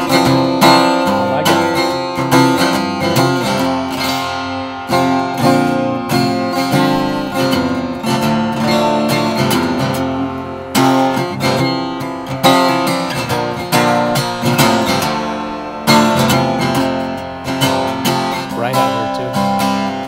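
RainSong carbon-fiber jumbo acoustic guitar played solo: a continuous passage of picked notes and strummed chords ringing on, with a few sharper strums along the way.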